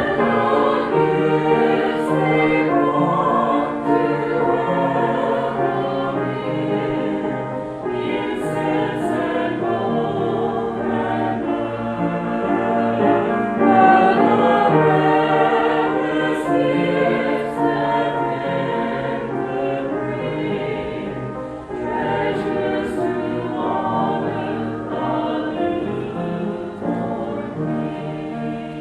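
Choir singing a hymn with instrumental accompaniment.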